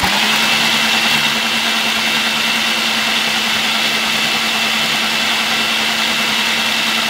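Countertop blender motor starts suddenly and runs at a steady speed with a steady hum and a high whine, blending a chocolate banana smoothie with ice and almond milk.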